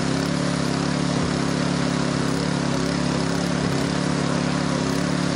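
A parked emergency vehicle's engine idling steadily, a low even hum that does not change.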